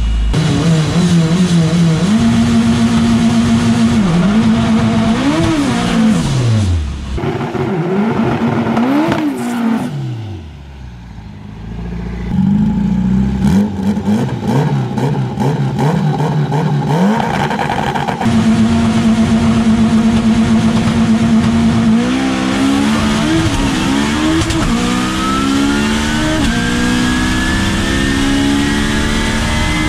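Twin-turbo Toyota MR2 drag car's engine held at a steady high rev on the launch limiter, with repeated quick revs up and down in between. About two-thirds of the way through it launches, and the engine note climbs steadily under full acceleration.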